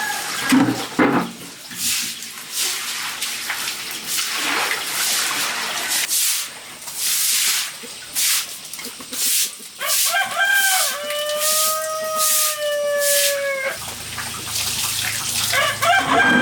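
A rooster crowing: one long call about ten seconds in, held for several seconds and falling slightly in pitch at the end, and a second crow starting near the end. Before it there is a run of short, noisy rustles or scrapes.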